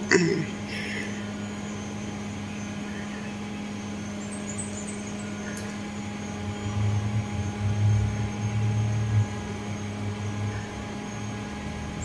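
A steady electrical hum, like a fan or air conditioner running. A low rumble comes and goes from about six to ten seconds in.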